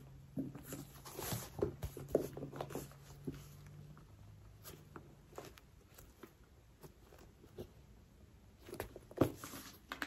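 Quiet handling of a leather crossbody handbag: scattered soft taps, rustles and small clicks of its metal hardware as the flap and compartments are opened and closed, with one sharper click near the end.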